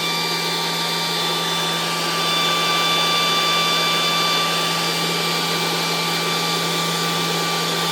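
A high-pressure PCP air compressor unit running steadily: an even mechanical hum with a constant high whine, growing slightly louder a couple of seconds in.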